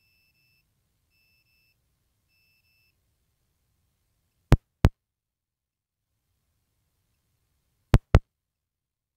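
Near silence with faint, short high beeps repeating, broken by two sharp double clicks, one about four and a half seconds in and one about eight seconds in.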